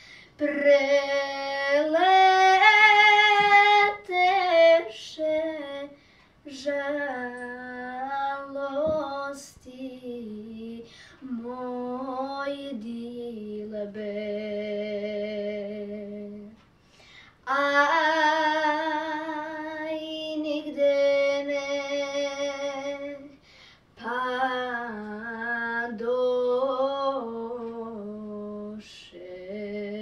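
A girl singing a traditional Serbian folk song solo and unaccompanied, in phrases with wavering, ornamented held notes and short breaths between them.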